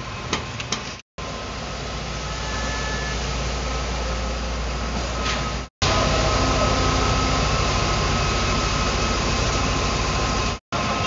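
Diesel engine of a Supertex concrete truck running steadily while unloading, a constant heavy mechanical drone with a deep hum and a faint whine. Twice it cuts out completely for a moment.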